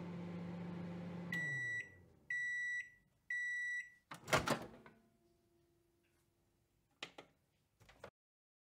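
Microwave oven running with a steady hum that winds down in pitch, then three half-second beeps about a second apart signalling the end of cooking. A loud clunk follows as the door pops open, and two small clicks come near the end.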